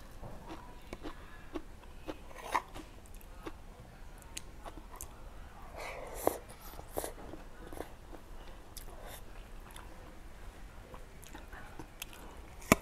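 Close-miked eating of bamboo-shoot curry and sticky rice by hand: chewing, wet smacking and sucking mouth sounds in scattered short clicks, with one sharp loud click near the end.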